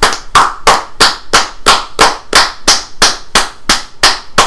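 Playback of three overdubbed tracks of hand clapping, layered so it sounds like several people clapping together in a steady rhythm, about three claps a second. The tracks are mixed with one louder and panned to the left and right.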